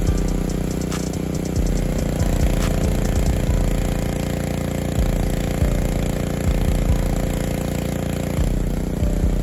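Gas-engine pressure washer running steadily under load as its wand sprays, its pump feeding a bleach solution drawn in by the downstream injector. The engine note shifts slightly near the end.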